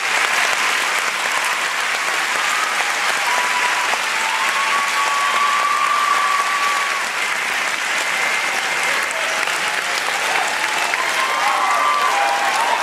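Large audience applauding steadily, with a few cheers rising over the clapping.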